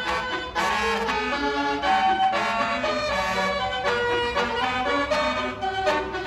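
Basuri multi-tone bus horn ('telolet') playing a melody, note after note, over a steady low engine rumble.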